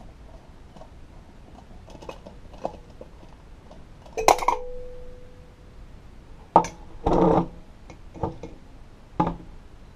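Metal parts of a chrome bullet mirror clinking and knocking as it is taken apart by hand. One sharp strike about four seconds in rings briefly at one pitch, and a few more knocks and clicks follow in the second half.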